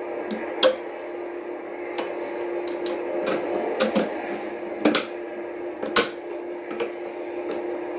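Steady engine hum inside a stationary vehicle's cab as it idles, broken by irregular sharp clicks and knocks.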